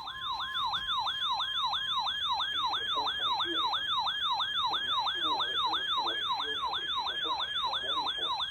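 Electronic emergency alert tone: a steady single-pitch warning tone under a fast, siren-like yelp of falling sweeps, repeating about three times a second and ending abruptly.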